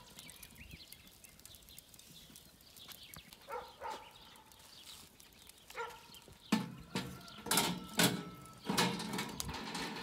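A wire cooking grate set onto a steel charcoal grill made from old water boilers: a run of metal clattering and rattling starting about six and a half seconds in, the loudest sound here. Earlier, a few short animal calls are heard faintly.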